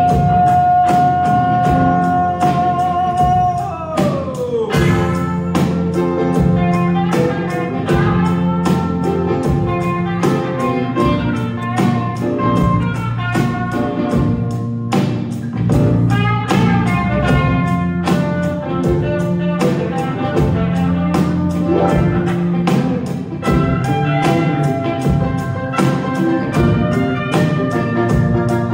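Live rock band playing: electric guitars and keyboards over a steady drum beat. A long held note wavers and then slides down about four seconds in.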